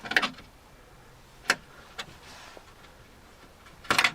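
Sharp metal clicks and clinks of hand tools working a car door's window-frame bolts: a short cluster at the start, a single click about a second and a half in, and another cluster near the end.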